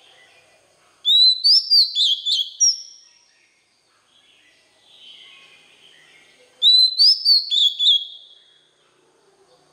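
Oriental magpie-robin singing: two loud phrases of rapid, high whistled notes, one starting about a second in and one about six and a half seconds in, each lasting a second and a half to two seconds, with softer warbling between them.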